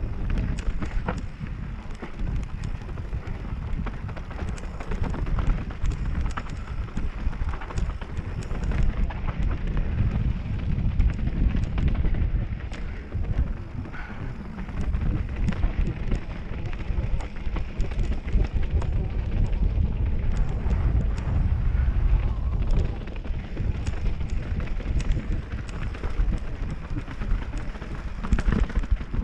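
Wind buffeting the microphone over the rumble of a mountain bike's tyres rolling down a rocky dirt trail, with frequent clicks and rattles from the bike over the bumps.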